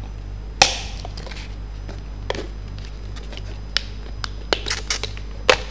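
Thin injection-moulded plastic food containers and lids being handled, giving a scatter of sharp clicks and taps, the loudest about half a second in and several more near the end, over a steady low electrical hum.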